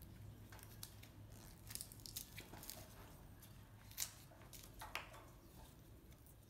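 A few faint, sharp crunches and clicks, the loudest about four seconds in, as a baby macaque bites into and chews fresh lotus seeds.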